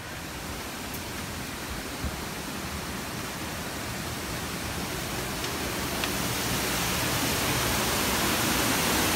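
A waterfall rushing down rockwork: a steady hiss of falling water that grows gradually louder.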